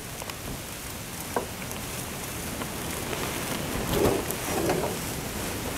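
Egg-and-bread omelette frying in a pan, a steady sizzle, with a faint voice briefly about four seconds in.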